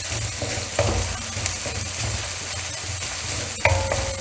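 Crushed ginger and garlic sizzling in coconut oil in a wok on a low flame, while a spoon stirs and scrapes the pan bottom in repeated strokes. A sharper metallic scrape with a brief ring comes near the end.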